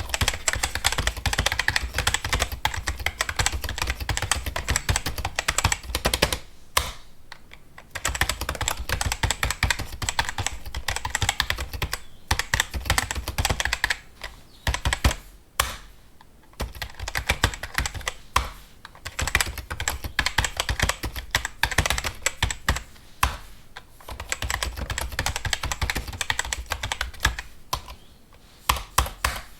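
Fast typing on a computer keyboard: rapid runs of key clicks, broken by brief pauses, for example around seven and sixteen seconds in.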